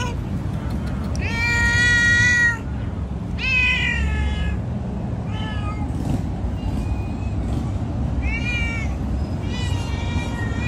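A domestic cat meowing loudly and repeatedly, about six meows: a long, even one near two seconds in, then shorter calls that bend and fall in pitch.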